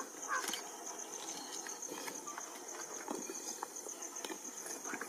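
Greater one-horned rhino walking through grass: scattered light ticks and rustles, over a steady high-pitched drone.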